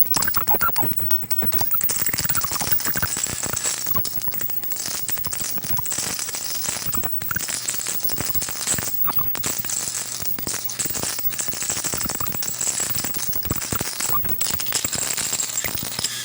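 High-voltage plasma discharge crackling and hissing without a break, with short warbling, whistle-like chirps as the ion wind exits a tube.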